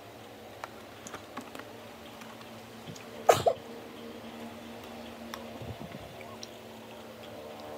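A person sipping milk tea through a plastic straw from a gallon bottle: faint scattered clicks, with one short, loud throat sound about three seconds in. A steady electric-fan hum runs underneath.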